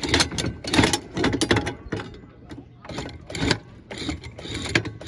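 Newly installed electric anchor windlass running, hauling the anchor up to the bow roller: a motor hum under irregular metallic clanks, about two or three a second.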